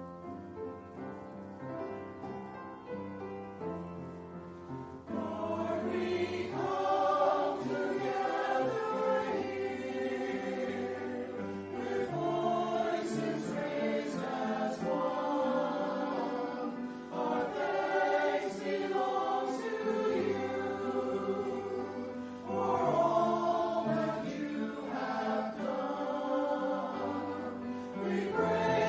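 Choir singing with instrumental accompaniment. A quieter instrumental passage of held low notes opens, and the voices come in about five seconds in.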